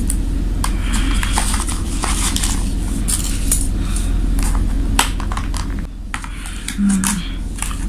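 Clear plastic takeaway food tray being handled and its lid taken off: irregular crinkles and sharp clicks of thin plastic. A steady low hum runs underneath.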